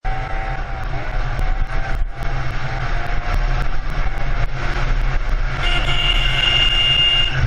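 Motorcycle on the move: engine and heavy wind rumble on the camera microphone, with a steady high-pitched tone over the last two seconds or so.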